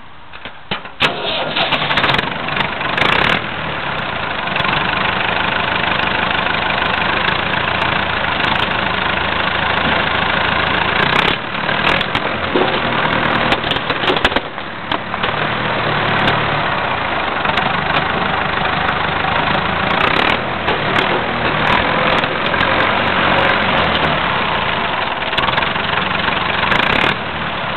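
Tractor engine starting about a second in and then running steadily, with sharp cracks and knocks now and then as the machine crushes an IBM PC.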